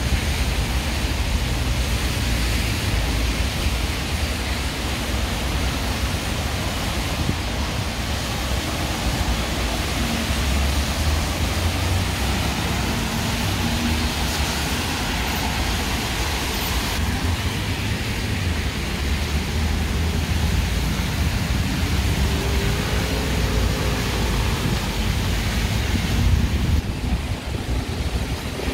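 Heavy rain pouring steadily, an even hiss with a low rumble underneath.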